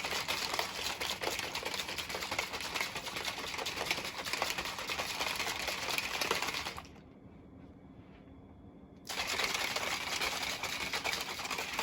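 Rapid, continuous scratchy rustling, 'shaka-shaka', that breaks off for about two seconds in the middle and then starts again.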